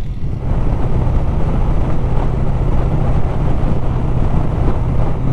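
Honda VFR800F's V4 engine running at a steady speed under the rush of wind noise on the microphone.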